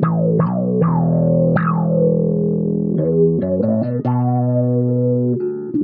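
Electric bass guitar played through a Tone Grinder overdrive pedal at maximum drive and an envelope filter. Each plucked note opens with a bright wah-like sweep that falls in pitch as it rings. Four quick notes come in the first two seconds, then a run of shorter notes.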